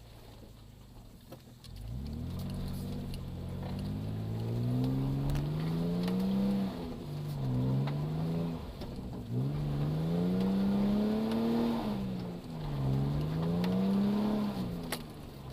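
1996 Nissan Pathfinder's engine revving hard over and over, pitch climbing and falling back four times after a couple of seconds of low running, as the 4x4 strains to climb out of a deep hole.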